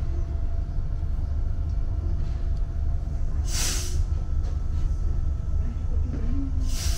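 Steady low hum inside a standing DART 8100 Class electric multiple unit, with a short hiss of air from the brakes about three and a half seconds in and another hiss starting just before the end, as the brakes release to move off.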